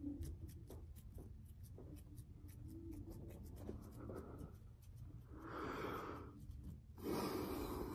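Crispy ASMR hand sounds close to the microphone: fingers and palms rubbing and squeezing together, with many small dry clicks. There are two louder swells of rubbing, about five and a half and seven seconds in.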